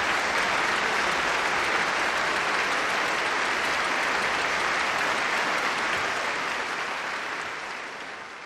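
Large concert-hall audience applauding steadily, fading out over the last couple of seconds.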